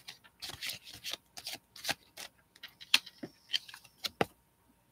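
Tarot cards being handled and turned over: a quick irregular string of sharp card snaps and short rustles, the loudest ones about three and four seconds in.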